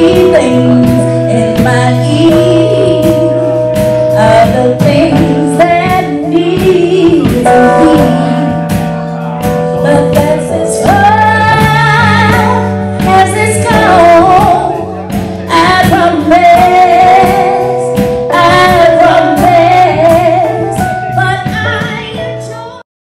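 Live neo-soul band: a woman sings a wavering melody into a microphone over drums, electric bass and held chords. The music cuts off abruptly just before the end.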